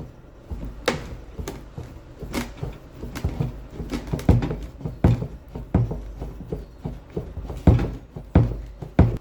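Vice grips working the rusted steel fingers of a fuel tank's embedded lock ring back and forth to snap them off: irregular sharp metal clicks and knocks, a few louder ones about four seconds in, near seven and a half seconds and near the end. The fingers are rusting through and failing, which is what lets the sending unit module lift off its seal.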